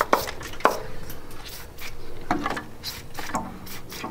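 Several short knocks and clicks as tools and a can of PB Blaster penetrating oil are handled against the rusty exhaust flange and downpipe studs.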